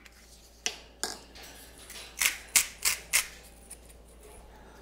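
Salt being dispensed over the omelette in a series of short, crisp rasps: two single strokes in the first second, then four quick ones close together in the middle.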